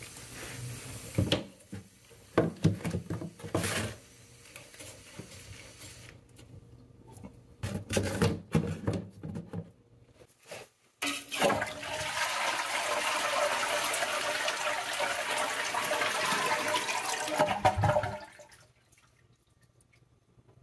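Toilet flushing for about six seconds, starting just past the middle and cutting off sharply near the end: the tank draining with its water supply shut off, so it does not refill. Before it, a few handling knocks and clatters.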